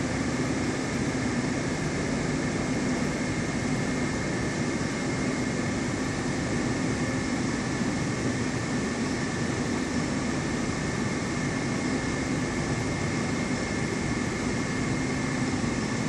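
Steady mechanical hum and hiss of an aquarium's background machinery: a low drone with a faint high whine above it, unchanging throughout.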